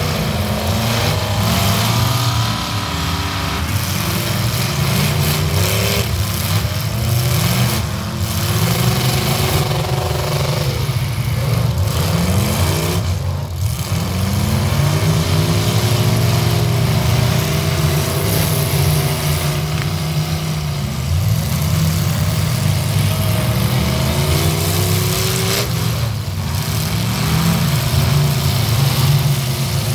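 Several demolition derby cars' engines running hard together, their pitch rising and falling repeatedly as the drivers rev, reverse and ram.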